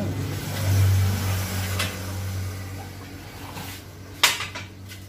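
A steady low machine hum, with a few knocks from a tire on its alloy rim being handled; the loudest is a sharp knock about four seconds in.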